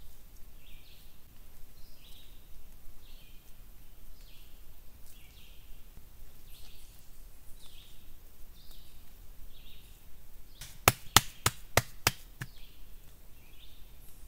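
A bird calls over and over with a short high chirp, less than a second apart. About eleven seconds in come six quick sharp knocks in a row, a hand-held rock striking a hard surface.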